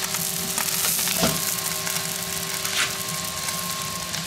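Beef burger patties sizzling in their fat on a grill mat, a steady hiss with a few short crackling pops.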